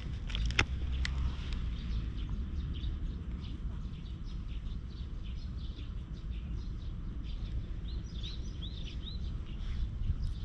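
Outdoor background of birds chirping over a steady low rumble, with a quick run of four chirps about eight seconds in. A single sharp click sounds about half a second in.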